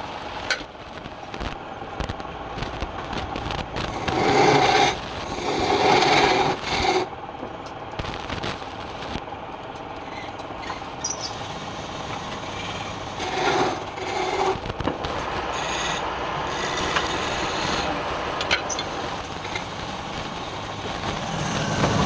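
Wood being worked on a spinning lathe: a steady rasping, scraping sound, swelling louder and taking on a pitched whine twice, about four seconds in and again near the middle.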